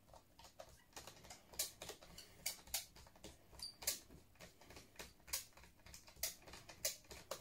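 Irregular light clicks and taps of small screws and a screwdriver on a laptop's plastic bottom cover, as the screws are set back in place and driven in.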